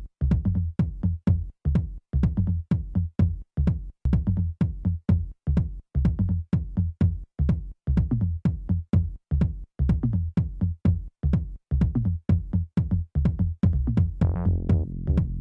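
Electronic dance music with a steady, evenly spaced kick-drum beat; a pitched synth line comes in near the end.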